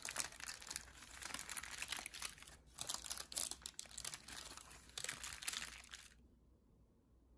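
Parchment baking paper crinkling and rustling as hands peel it back from a freshly baked Basque cheesecake, in irregular crackling handfuls; it stops abruptly about six seconds in.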